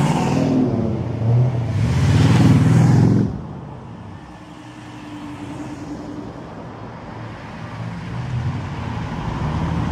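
Early-1970s Ford Mustang's engine revving loudly as the car accelerates away, swelling again after about two seconds and then dropping off fairly suddenly. Quieter engine and tyre sounds of slower cars passing follow, building again near the end as another car approaches.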